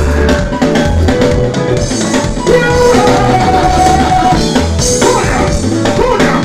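Loud music over a stage sound system, with a steady pounding drum-and-bass beat and a voice singing over it.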